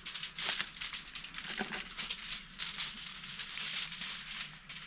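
Aluminium foil crinkling and crackling in irregular bursts as a burrito is rolled up and wrapped in it.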